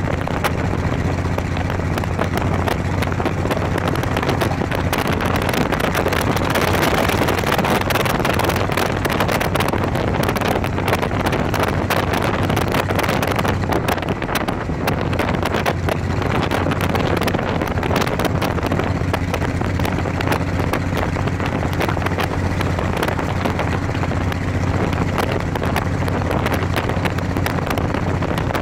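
Cruiser motorcycle engine running steadily at cruising speed, with wind buffeting the microphone and road noise.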